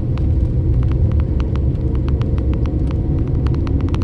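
Car driving on a back road, heard from inside the cabin: a steady low road and tyre rumble with many quick, irregular sharp ticks over it, several a second.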